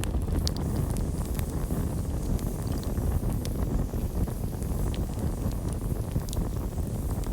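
Campfire burning: a steady low rush of flames with scattered sharp crackles and pops throughout.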